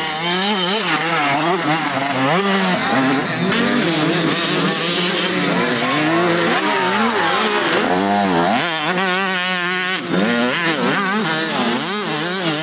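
Several motocross bikes racing, their engines revving up and down with throttle and gear changes. About nine seconds in, one engine's pitch warbles quickly.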